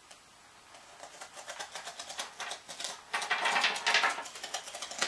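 Packing tape on a cardboard box being cut and scraped open by hand: a quick run of small scratching clicks that starts about a second in and gets louder and denser for the last couple of seconds.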